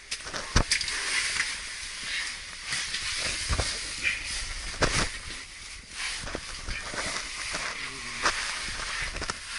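Rustling and scraping of clothing and gear against rock as someone crawls through a tight cave passage, a steady hiss broken by a few sharp knocks.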